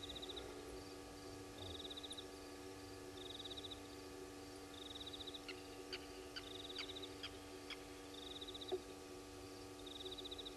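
A night insect calling: a faint, high pulsed trill repeating about once a second, with a few faint clicks midway and a steady low hum beneath.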